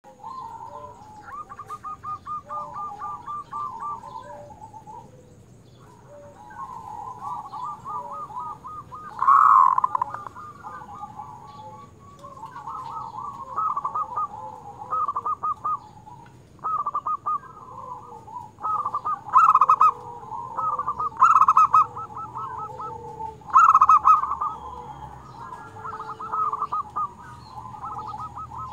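Zebra dove (perkutut) singing: repeated short phrases of rapid, pulsing coos, some phrases noticeably louder than others.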